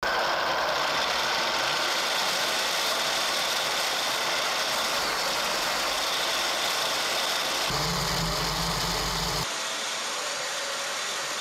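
3D-printed plastic shredder driven by a 775 DC motor through printed gears, running steadily as its yellow cutting plates turn and chew a head of lettuce. A deeper rumble comes in about eight seconds in, and the sound drops a little about a second and a half later.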